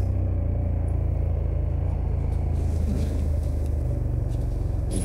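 KTM 1290 Super Adventure's V-twin engine running steadily under way on the road, a constant low rumble without revving.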